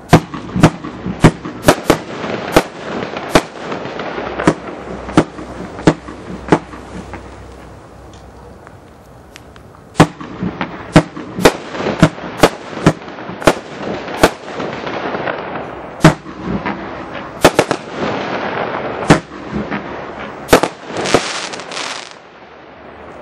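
A 93-shot 'Street Fighter' consumer firework battery (up to 30 mm calibre) firing: a rapid series of sharp bangs about half a second to a second apart, a pause of about three seconds near the middle, then a second volley. Near the end, a dense crackling hiss.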